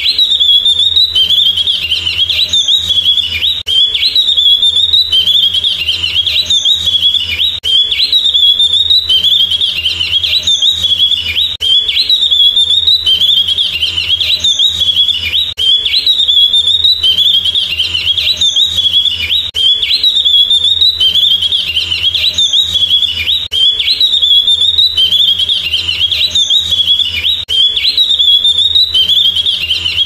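Javan grey-throated white-eye (opior jawa) singing a rapid, high twittering song, the same phrase repeating roughly every two seconds without a break. A faint steady low hum runs underneath.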